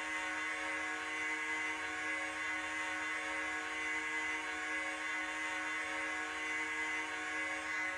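Ice hockey goal horn sounding one long, steady blast.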